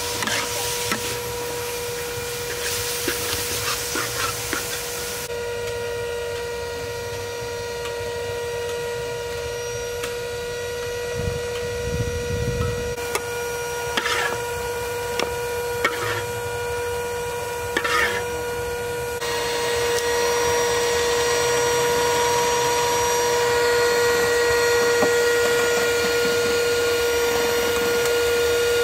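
Metal spatula scraping and stirring minced pork in a steel wok, with a few sharp taps of metal on metal in the middle as the meat is scooped out, over a steady hum.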